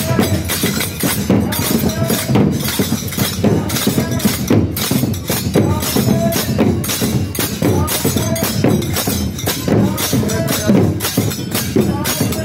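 Dammam drums beaten in rapid repeated strikes for dammam matam, the Muharram mourning drumming, with voices calling out over them in recurring rising and falling cries.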